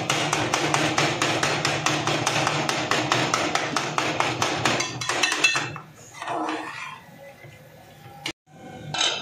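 Metal spatula rapidly striking and chopping chicken gizzards and liver against the bottom of an aluminium pot: an even run of sharp metal clacks, about six a second, the tak-tak clatter that gives taka tak its name. About five seconds in the clacking slows and turns softer.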